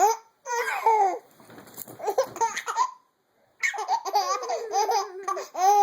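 Baby laughing in high-pitched bursts, breaks off for about half a second around three seconds in, then resumes with a longer, faster run of laughs.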